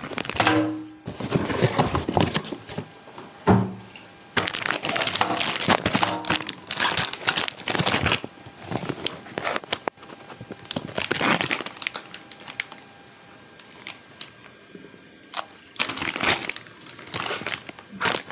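Plastic crinkling and rustling with scattered sharp clicks, in irregular bursts with a quieter stretch past the middle, as a plastic toy pistol is handled.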